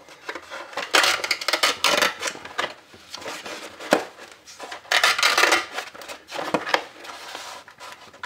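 Paper cone of a blown 15-inch bass speaker being torn out by hand: several bursts of ripping and crackling, with a sharp click about four seconds in.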